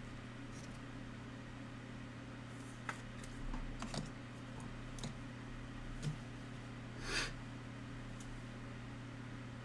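Trading cards and clear plastic card holders being handled: a few faint clicks and taps, and a brief slide or rustle about seven seconds in, over a steady low hum.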